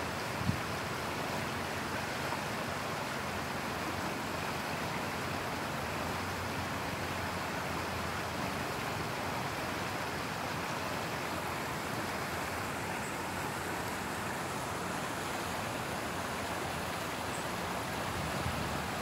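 Water pouring over a low river weir, a steady rushing sound.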